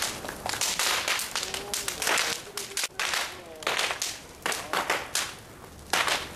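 Large bonfire burning, with loud sharp cracks and pops from the burning wood coming irregularly, often several in quick succession.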